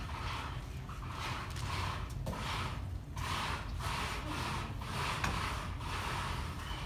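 Stage front curtain being drawn open, its fabric and track carriers swishing in even pulses about one and a half times a second, over a steady low hum.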